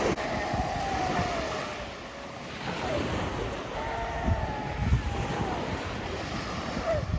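Sea waves washing on the beach, with wind gusting across the microphone in a low, uneven rumble.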